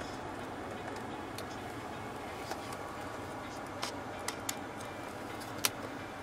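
Plastic push-buttons for the seat heating and ventilation on a car's centre console clicking as they are pressed: five sharp clicks from about two seconds in, the last the loudest, over steady low background noise.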